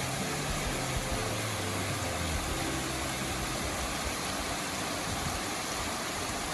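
Small waterfall's water pouring over a rock slab into a pool, a steady rush.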